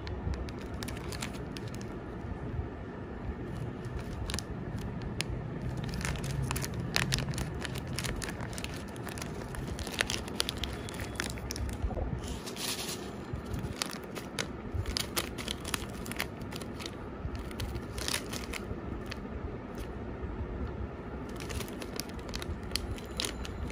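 Plastic snack packets crinkling and crackling as they are handled and turned over in the hands, in irregular sharp crackles.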